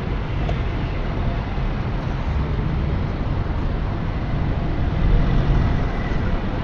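Street traffic going by: a steady rumble of passing vehicles, swelling a little about five seconds in.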